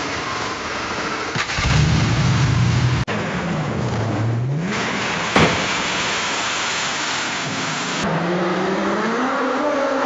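Car crash sound effects in sequence: a car engine starting and running loudly. About three seconds in, an abrupt cut to an engine dipping and rising in pitch, then one sharp crash impact a little after five seconds. About eight seconds in, another cut to a race car engine rising in pitch.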